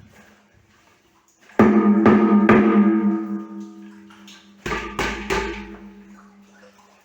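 Two sets of three sharp metal strikes, each leaving a pitched ringing tone that dies away over a couple of seconds. This fits hammer blows on a chisel or other metal tool.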